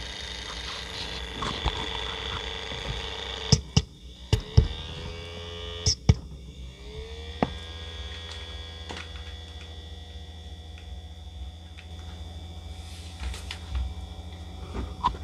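Twin small cooling fans on a Raspberry Pi 4 aluminium case running with a steady hum and a high whine, loud just after power-on because the fans are worn from long use. Several clicks and knocks from the clip-on microphone being handled and set down, between about three and seven seconds in.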